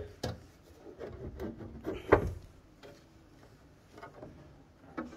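A solar inverter's front cover being handled and shifted on its case after its screws are out: a few knocks and scrapes, the loudest a thump about two seconds in.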